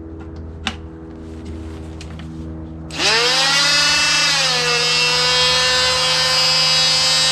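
Electric oscillating multi-tool switched on about three seconds in. Its motor comes up to speed with a loud high whine that rises quickly, dips slightly, then holds steady. Before it starts, a low hum and a single click.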